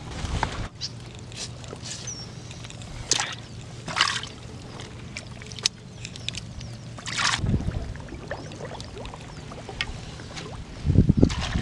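Water splashing and sloshing in the bottom of a wooden dugout boat as hands work in it, several short splashes; near the end, low thuds as the boat is poled along.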